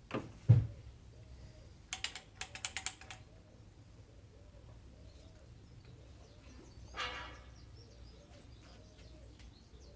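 A sharp knock about half a second in and a quick run of clicks about two seconds in, from parts being handled; a dove coos softly and over and over in the background.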